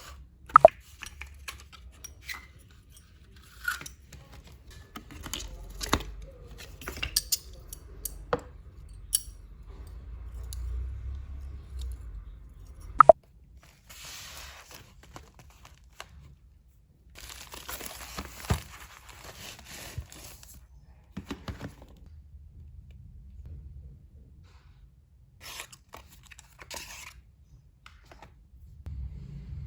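Package wrapping being torn open and handled: stretches of ripping and tearing with crinkling, between scattered sharp clicks and small knocks.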